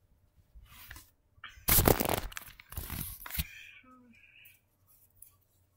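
Rustling and scraping handling noises: a loud rough stretch of them starts about a third of the way in and lasts under two seconds, followed by a few faint short sounds.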